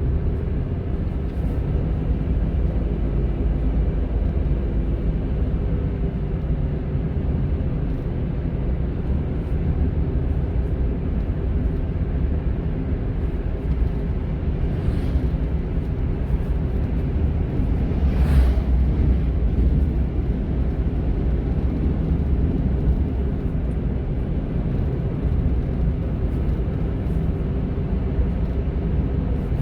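Honda N-ONE kei car driving along: steady low engine and road rumble from its three-cylinder engine and tyres. A brief louder swell comes a little past the middle.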